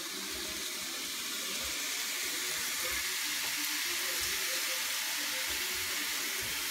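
Ground turkey sizzling as it browns in hot sesame oil in a skillet, a steady hiss that grows slightly louder.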